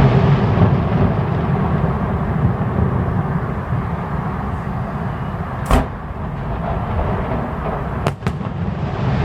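Fireworks display: a steady low rumble, with one sharp bang a little over halfway through and a quick pair of bangs near the end.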